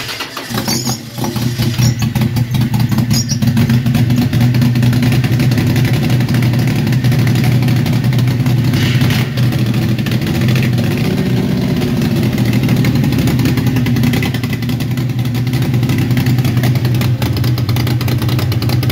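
Toyota 2JZ-GE naturally aspirated inline-six that has just been started by jumping its starter wire by hand. It catches unevenly for about the first second, then settles into a steady run at an even pitch.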